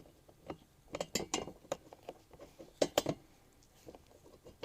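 Garden cart assembly hardware (bolt, washer and bracket) clinking and knocking as it is handled and fitted. A scatter of sharp clicks, with a cluster about a second in and another near three seconds.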